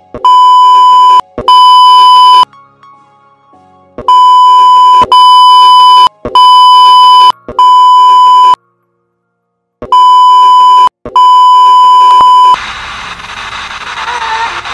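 A dubbed-in 1 kHz bleep tone, very loud, sounding as eight beeps of about a second each with short gaps and two longer breaks, covering the sound of the radio being switched on. From about 12.5 s in, a steady radio static hiss as the tuning knob is turned.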